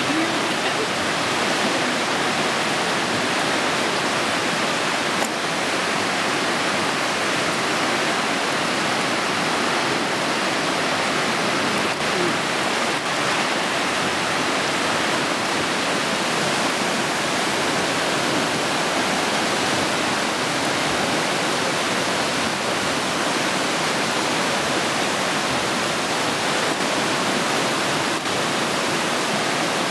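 Whitewater of the East Fork Quinault River rushing through a narrow rock gorge: a steady, unbroken wash of water noise.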